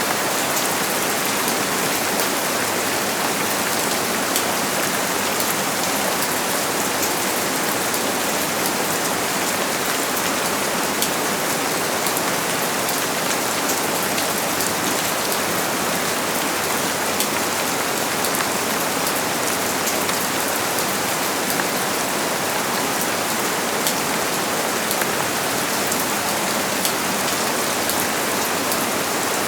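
Steady rain falling: a dense, even hiss with many small drop ticks.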